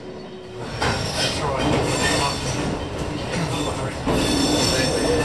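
A heritage railcar running along the track, heard from on board: a steady rolling rumble of wheels on rail that comes in loudly about a second in and swells again near the end.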